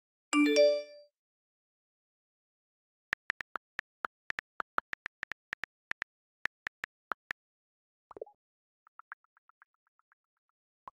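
A short electronic chime of several tones just after the start, then a run of phone keyboard clicks, about five a second, as a chat message is typed on the touchscreen. About eight seconds in, a quick swooping pop marks the message being sent.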